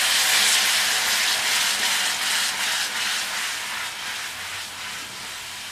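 Jaggery syrup sizzling and bubbling as it boils on ghee-sautéed grated coconut in an aluminium kadai, stirred with a wooden spatula. The hiss dies down gradually as the liquid settles.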